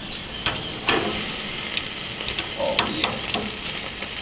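Thick dry-aged porterhouse steak sizzling as it sears on an infrared grill burner at high heat: a steady hiss with scattered sharp pops and clicks.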